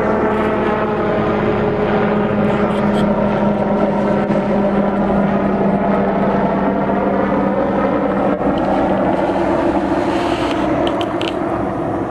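Hughes 369HS light helicopter's rotor and turbine running steadily in flight, growing a little fainter near the end.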